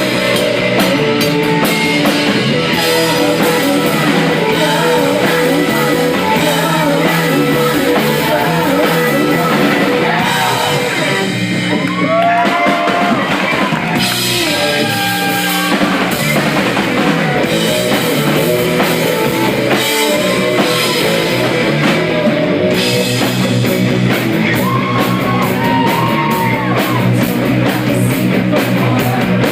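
A rock band playing live: electric guitars, bass and drum kit, with a voice singing in stretches about halfway through and again near the end.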